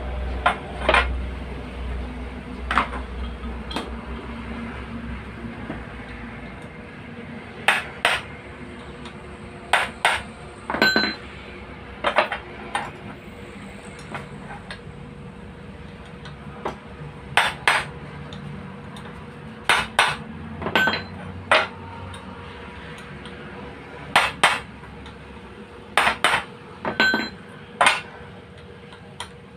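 Hammer striking a hand impact screwdriver to break loose the screws of a car's electric radiator fan motor: sharp metal-on-metal blows, mostly in quick pairs every two or three seconds, some ringing briefly.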